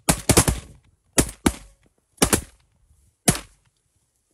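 A volley of shotgun fire from several goose hunters shooting at a flock: about eight sharp shots, three in quick succession at the start, then pairs and single shots spaced about a second apart, ending after about three and a half seconds.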